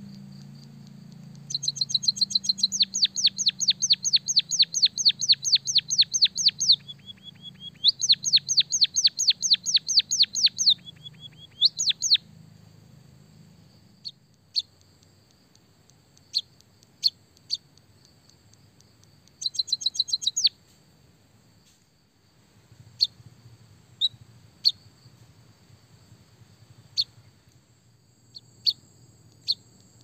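Finch song: fast runs of repeated high chirps, two long runs in the first twelve seconds and a short one about twenty seconds in, then scattered single chirps.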